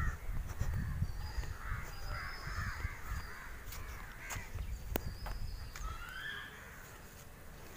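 Crows cawing several times, harsh calls bunched in the first few seconds and again about six seconds in, over a low rumble that fades toward the end.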